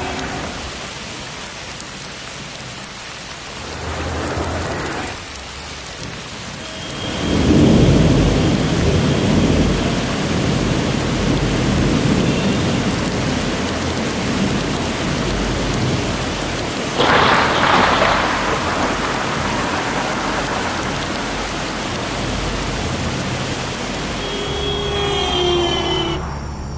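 Heavy rain falling steadily, with thunder rumbling up about a quarter of the way in and a sharper thunderclap a little past halfway. A few short pitched tones come in near the end.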